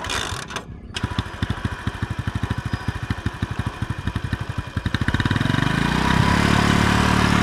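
Honda Pridor 100's small single-cylinder four-stroke engine catching about a second in and idling with distinct, even beats. Its speed and loudness rise from about five seconds in, and it then runs steadily.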